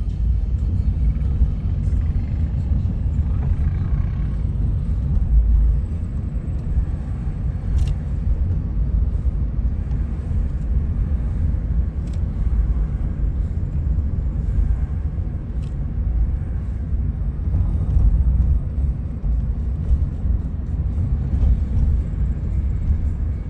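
Car driving slowly along a town street: a steady low rumble of road and engine noise that swells and eases a little, with a few faint clicks.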